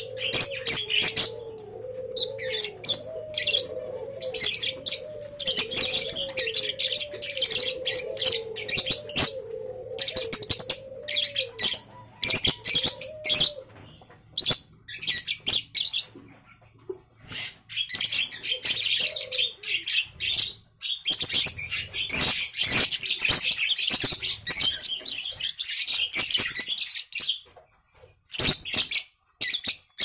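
Lovebirds chattering in long, rapid, high-pitched runs, broken by short pauses about halfway through and again near the end. This is the long-duration chatter that young lovebirds from contest lines are bred for.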